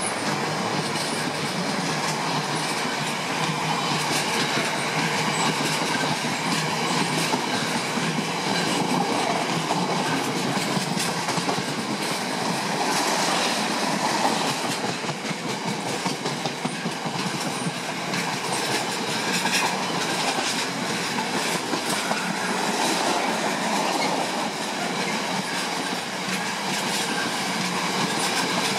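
Freight train of bogie tank wagons passing close by: steady noise of steel wheels running on the rails, with scattered clicks as the wheels cross rail joints.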